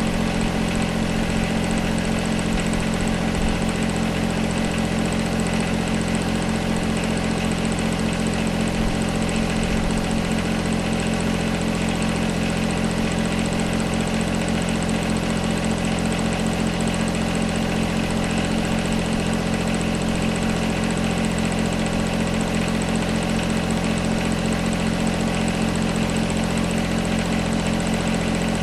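John Deere 1025R compact tractor's three-cylinder diesel engine running steadily at a constant speed.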